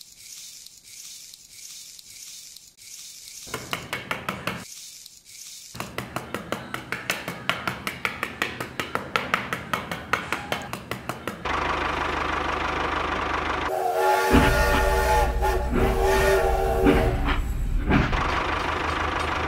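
A toy steam train runs on its plastic track, playing its electronic steam and chuffing sound, with a whistle of several tones sounding about two-thirds of the way in. Before that, a small tool scrapes through sand in soft regular strokes.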